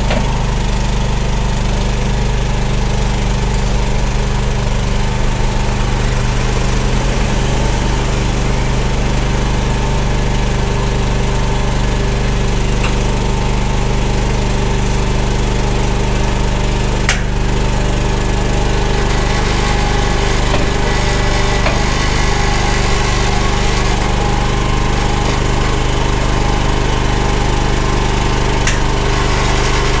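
EGN EG360 stand-on tracked mini skid steer's engine running steadily as the machine creeps down the trailer ramps, with one sharp knock about halfway through.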